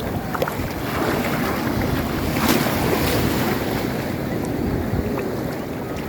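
Wind buffeting the microphone over the rush of sea surf, swelling louder about two and a half seconds in.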